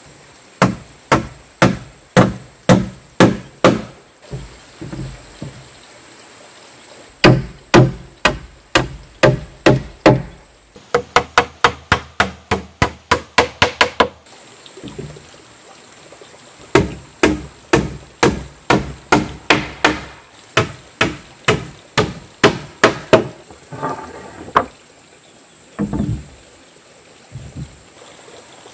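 Hammer nailing rough-sawn wooden planks to a frame: sharp blows in quick runs of about two to four strikes a second, with short pauses between runs and a few softer knocks near the end.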